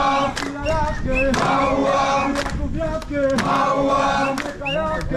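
A group of voices singing a chant-like song together, with sharp percussive strikes every second or so.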